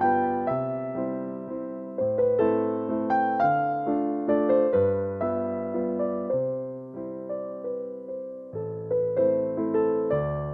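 Background music: a keyboard with an electric-piano sound plays a melody of notes that strike and fade, over low bass notes that change about every two seconds.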